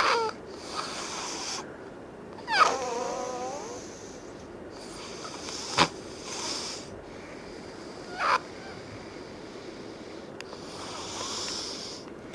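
Really loud snoring with a whistling nose: a run of noisy sleeping breaths, two of them carrying a squeaky whistle that slides in pitch. There is a sharp click about six seconds in.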